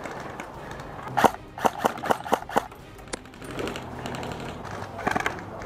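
Airsoft rifle firing: about six single shots in quick, uneven succession over a second and a half, then a short rapid burst of several shots near the end.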